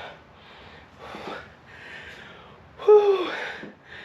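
A man breathing hard, winded from a weightlifting set: several heavy breaths about a second apart, then a loud voiced "whew" falling in pitch about three seconds in.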